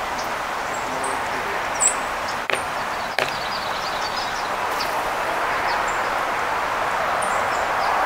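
Steady outdoor background rush that grows a little louder toward the end. A few sharp taps come about two to three seconds in, and faint high bird chirps sound over it.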